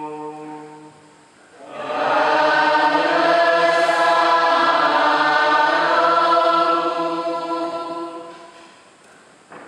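Congregation and choir singing a long, held sung response in church. A single chanted line fades in the first second, then many voices swell in on one sustained chord and fade away near the end.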